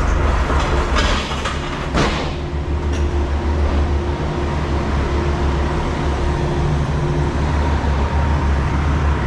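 An engine running steadily at idle, a low drone with a faint steady whine over it, and a single knock about two seconds in.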